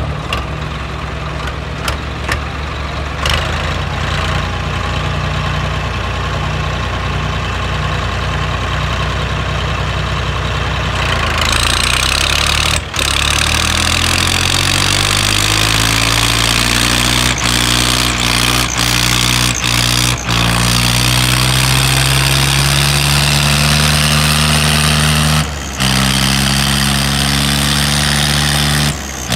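Diesel tractor engines running hitched together in a tug-of-war pull. About twelve seconds in, they are opened up under load: the engine note climbs steadily for about ten seconds and then holds high, with a loud rushing noise over it. There are a few brief dropouts.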